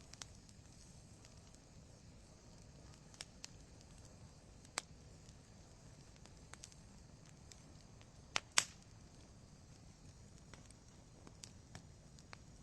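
Wood fire crackling in a fireplace: scattered sharp pops and snaps over a low steady hiss of the flames, the loudest being two pops in quick succession about two-thirds of the way in.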